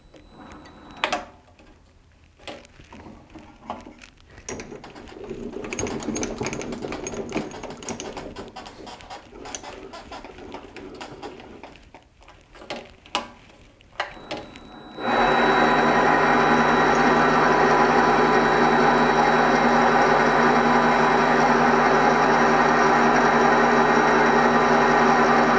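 MX-180D variable-speed mini metal lathe: scattered clicks and knocks for about the first fifteen seconds, then the lathe starts abruptly and runs steadily, a loud machine hum with several fixed whining tones.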